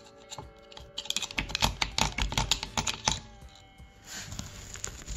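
Rapid metallic clicking and rattling as a screwdriver is worked against the spider gears of a differential carrier, densest from about one to three seconds in, then lighter.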